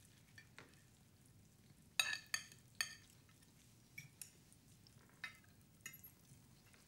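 Sparse clinks and clicks of cutlery and tableware at a dinner table, with three louder clinks about two to three seconds in and a few fainter ones after.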